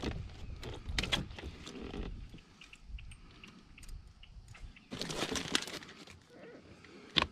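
Handling noises of a small northern snakehead being worked in a rubber-mesh landing net in a kayak: scattered rustles, knocks and rattles, with a busier stretch of rustling about five seconds in and a sharp click near the end.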